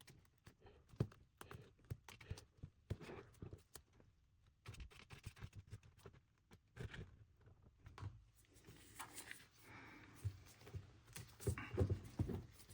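A metal pry tool working under the edge of an iPad Pro's screen, with faint, irregular clicks and scrapes as it separates the adhesive.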